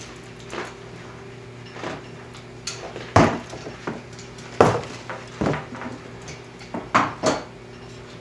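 A series of sharp knocks and cracks, irregularly spaced and loudest about three, four and a half, and seven seconds in, over a steady low hum.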